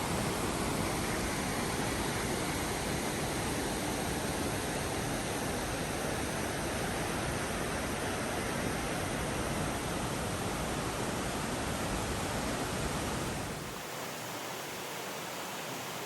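Fast-flowing creek water rushing over granite boulders: a steady roar of white water, which drops a little and loses its deepest rumble near the end.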